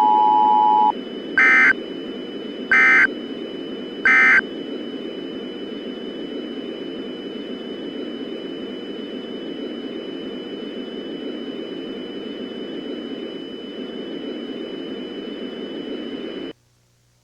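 Emergency Alert System end-of-message sequence: a brief dual-tone beep, then three short digital data bursts (the SAME end-of-message code), about one and a half seconds apart. Steady broadcast static hiss with a faint high whine follows and cuts off suddenly near the end.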